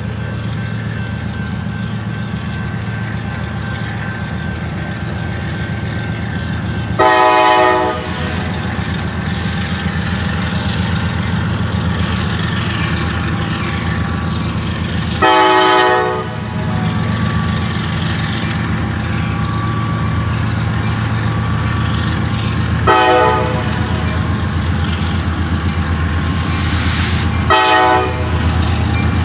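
Diesel freight locomotive sounding its multi-chime air horn as it nears a grade crossing: two blasts of about a second, then two shorter ones. A steady low diesel rumble runs underneath.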